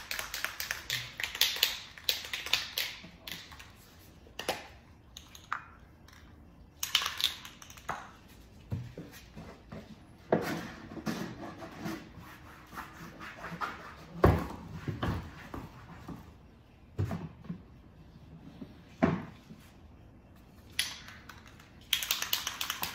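Agitator ball rattling inside a Rust-Oleum camouflage spray-paint can as it is shaken, in fast runs of clicks during the first few seconds, around seven seconds in and again near the end. In between come a few single knocks and the rub of a cloth wiping a plastic cooler.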